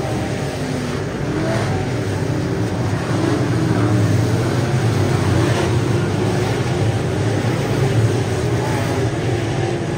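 Dirt track race cars' V8 engines running at speed around the oval, their engine notes wavering as the cars pass, growing louder about three seconds in.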